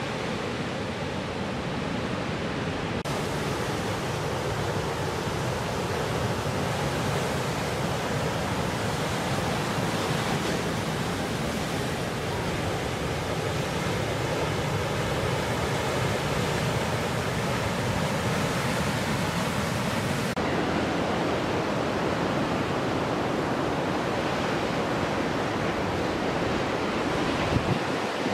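Breaking ocean surf: a steady rush of white water whose tone changes abruptly twice, about three seconds in and again about two-thirds of the way through.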